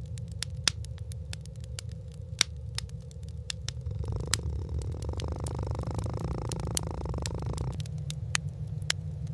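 Irregular sharp crackles and clicks over a steady low rumble, with a hissing noise added from about four to eight seconds in.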